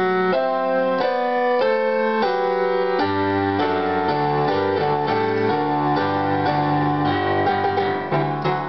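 Electronic keyboard being played with both hands in a piano voice: changing chords for about three seconds, then a repeating low left-hand pattern beneath held higher notes.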